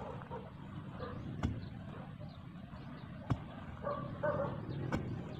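Long-handled garden tool chopping into grass and soil in regular strokes, a sharp thud about every second and a half to two seconds, three times. A dog barks a few times in the distance between strokes.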